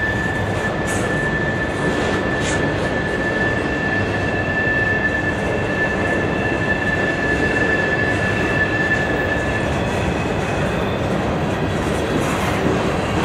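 Freight cars rolling past on a curve: a steady rumble and rattle of wheels on rail, with a high, steady wheel squeal. One squeal tone stops about ten seconds in, while a second, higher one comes in about four seconds in and carries on.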